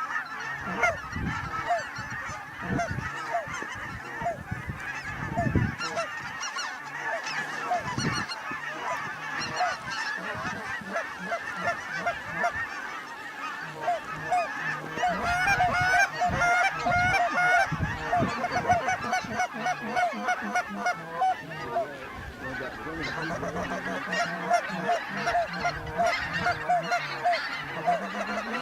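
A flock of geese honking: many short, overlapping calls with no break, thickest and loudest around the middle.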